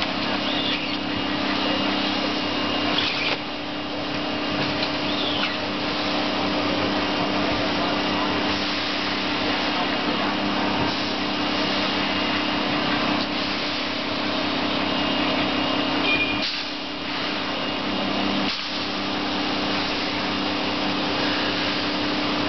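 Vaculex vacuum tube lifter running: a steady rush of air sucked through the lift tube over the constant hum of its 3 kW vacuum pump. The sound dips briefly twice about three-quarters of the way through.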